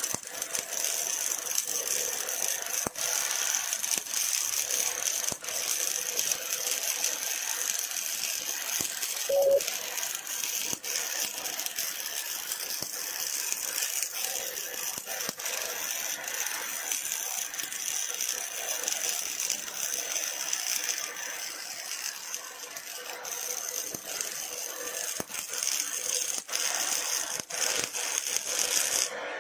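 Robotic MIG/MAG welding arc: a steady crackling, sizzling hiss studded with sharp pops as the wire feeds into the weld pool. A short tone sounds briefly about nine seconds in, and the arc cuts off abruptly at the very end.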